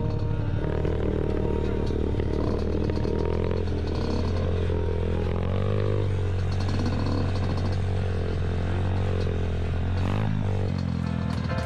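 Dirt bike engine running under way, its pitch rising and falling with the throttle.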